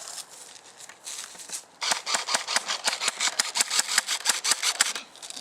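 Airsoft M4 electric gun cycling on full auto: a rapid mechanical rattle of about eight to ten clicks a second that starts about two seconds in and runs for about three seconds. The shooter complains that the gun is not firing.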